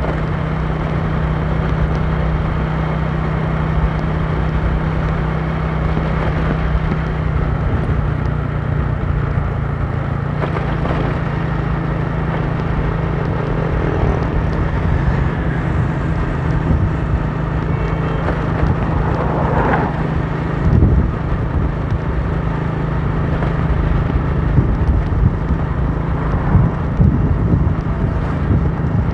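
Motorcycle engine running steadily at cruising speed: a steady low hum under the even rush of the ride.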